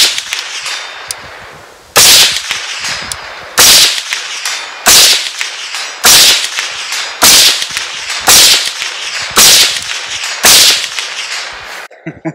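Unsuppressed Kel-Tec CMR-30 semi-auto carbine in .22 WMR firing single shots in a steady string, about nine sharp cracks roughly one a second, with a gap of about two seconds after the first.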